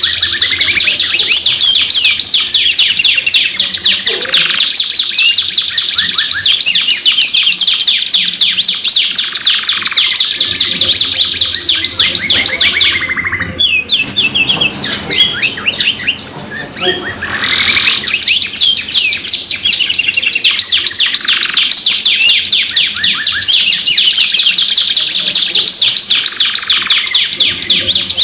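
Domestic canaries singing long, fast rolling trills and rapid strings of repeated chirping notes. The song thins out and drops briefly near the middle, then comes back dense.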